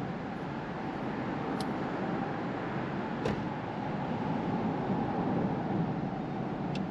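Steady drone of a boat motor running, with a faint steady hum and three light clicks.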